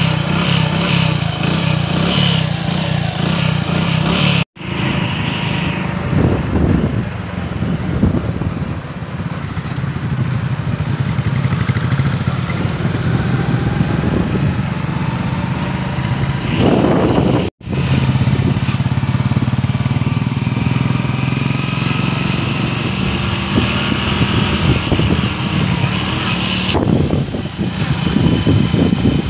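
Hero Splendor motorcycle's small single-cylinder engine running steadily while riding. The sound drops out for a moment twice, about four and a half and seventeen and a half seconds in.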